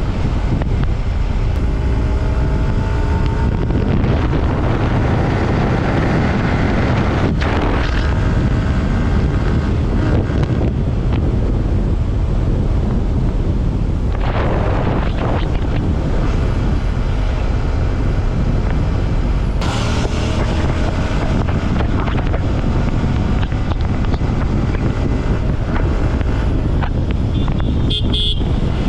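Wind rushing over the microphone mixed with a Yamaha R15 V4's 155 cc single-cylinder engine running at highway speed. The engine's pitch rises a couple of seconds in. A short horn toot sounds near the end.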